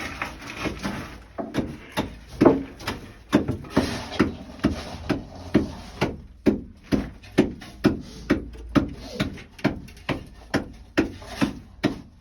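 Hammer blows driving a wooden timber or board into place in a mine passage: a long run of sharp, even strikes, about two a second.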